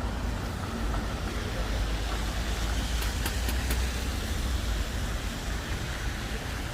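City street traffic: a steady low rumble with hiss, and a few faint high ticks about halfway through.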